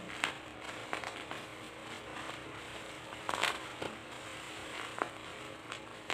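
Parcel packaging handled and opened by hand: scattered crinkles and clicks, the loudest cluster about three and a half seconds in, over a faint steady hum.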